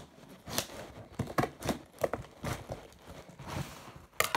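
Scissors cutting open the packing tape on a cardboard box: irregular snips, scrapes and crinkles of tape and cardboard, with a louder cluster of them near the end.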